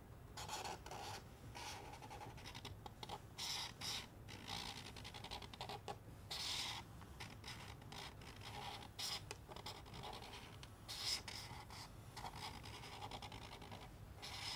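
Pen scratching on paper in short, irregular strokes.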